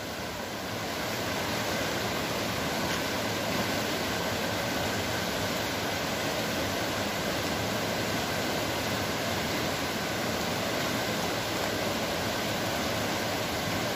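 River in flood, swollen by a night of torrential rain, rushing fast over rocks: a steady, even rush of water that grows slightly louder about a second in and then holds.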